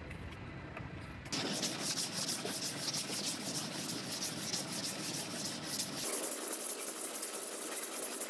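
Cured body filler on a car roof being sanded by hand with a sanding block: a dry, rasping rub in quick, even back-and-forth strokes, starting about a second in.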